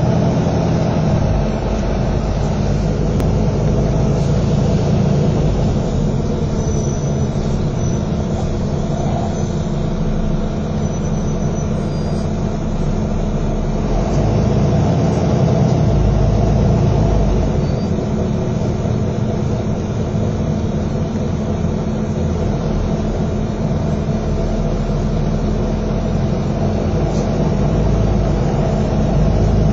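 Double-decker bus's diesel engine running, heard from a seat inside the passenger saloon: a steady low drone that swells for a few seconds around the middle.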